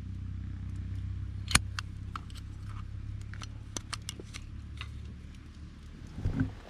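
Campfire wood crackling and popping, one sharp pop about a second and a half in, over a steady low rumble.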